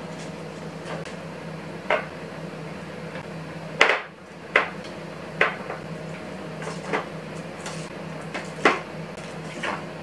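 Hard plastic clacks and knocks as drink bottles and cartons are set into and moved around clear acrylic organizer bins, about seven separate knocks at uneven intervals, the loudest about four seconds in, over a steady low hum.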